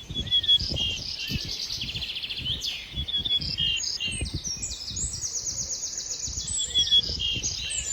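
Songbirds singing, a busy run of rapid trills and short whistled phrases following one another, over an irregular low rumble.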